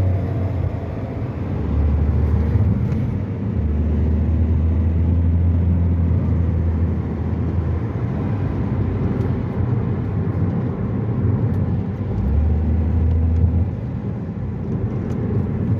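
A 2008 Toyota Vitz with a CVT on a test drive: steady engine and road rumble that swells louder a few times as the car pulls away and accelerates. The CVT has just been recalibrated, and the car pulls smoothly without jerking.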